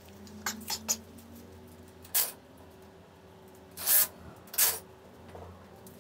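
Steel tape measure being handled against the pool table's rails: three quick clicks in the first second, then short rasping swishes about two seconds in, near four seconds and again half a second later.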